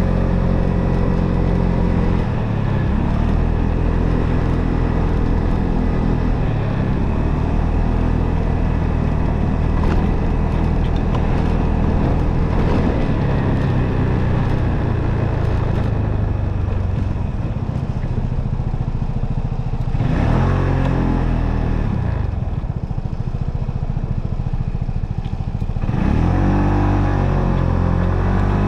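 Motorcycle engine running while riding, with wind and road noise. Its pitch dips and climbs through the run, with a rising rev about twenty seconds in and another near the end as it accelerates.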